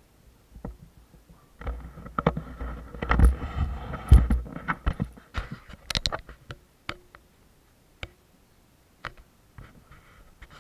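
Handling noise on an action camera's microphone: rubbing, a low rumble and sharp knocks for a few seconds as the camera is moved and set in place, then scattered single clicks.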